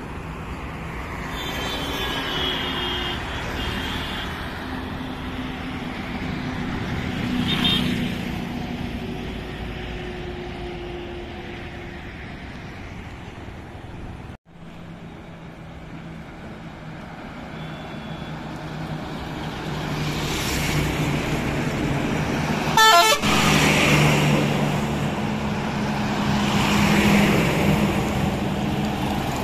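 Heavy multi-axle trucks passing on a highway, their diesel engines droning and tyre noise swelling and fading as they go by. Vehicle horns sound early on, and a sharp loud burst comes about two-thirds of the way through.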